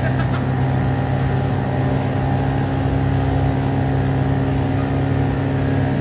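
British Seagull two-stroke outboard motor running steadily at a constant speed, pushing a small boat along.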